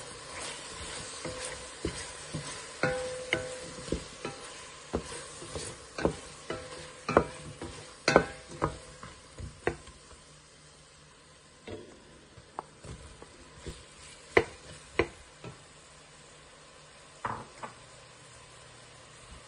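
Wooden spoon stirring chopped vegetables in a stainless steel pot, knocking and scraping against the pot, over a light sizzle of the vegetables sautéing. The knocks come thick and irregular for about the first ten seconds, some leaving a short metallic ring, then thin out to a few scattered taps.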